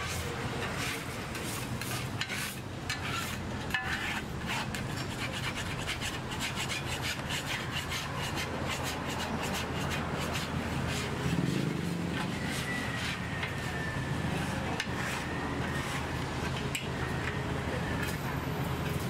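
Metal scraper rasping across a flat-top steel griddle in quick repeated strokes, over a low steady hum.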